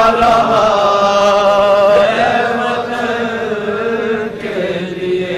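Men's voices chanting a noha, a Shia mourning lament, unaccompanied, drawing out long held notes of the refrain with a wavering pitch. The notes change about two seconds in and again near the end.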